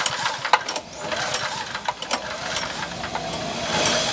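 Honda GX160 single-cylinder OHV engine being cranked by its recoil starter with the spark plug removed, irregular clicks, and a hiss that builds near the end as air and gasoline blow out of the plug hole. The engine is flooded: a leaking carburettor float needle has let fuel into the combustion chamber and crankcase.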